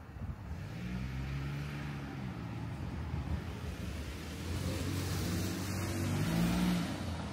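A car driving close by, its engine hum shifting in pitch as it moves, with tyre noise swelling to a peak about six seconds in as it passes.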